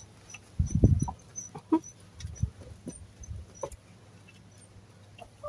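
A lurcher and hens feeding from a metal tray: scattered sharp pecking clicks and eating noises, with low rumbling bursts, the loudest about a second in. Faint high chirps sound now and then.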